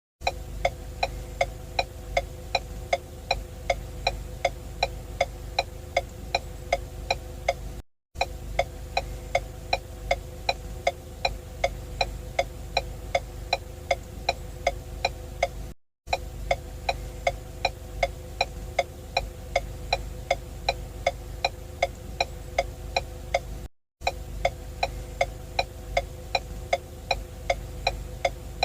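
Ford turn-signal indicator ticking steadily, about three clicks a second, over a low steady hum. The ticking cuts out briefly about every eight seconds.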